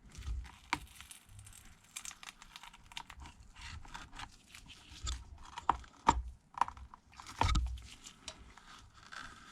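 Irregular small clicks, crackles and tearing from a thin metal pry tool working under an iPad Air's glass digitizer and peeling it off its adhesive, with a few sharper ticks about halfway through.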